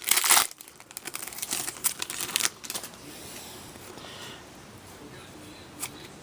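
Trading-card pack wrapper being torn open with a sharp rip, then crinkling for a couple of seconds as the cards are pulled out, before it goes quiet.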